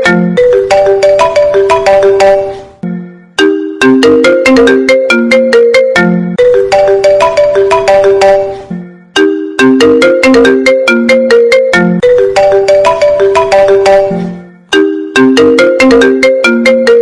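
iPhone ringtone playing: a bright melody of quick, evenly struck notes that loops about every six seconds, each loop fading out briefly before it starts again.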